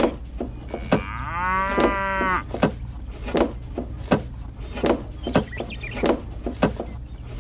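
A cow mooing once, a drawn-out call about a second in. Short light clicks at a steady pace of roughly one every two-thirds of a second run alongside it.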